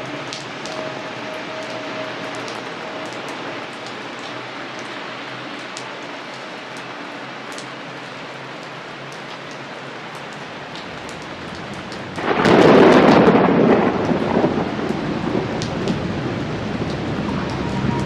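Steady rain falling. About twelve seconds in, a loud clap of thunder breaks in suddenly and rumbles away over a few seconds.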